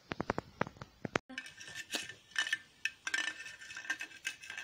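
Light clicking and clinking of small hard objects. A quick run of sharp clicks in the first second is followed by repeated clinks with a short ringing after each.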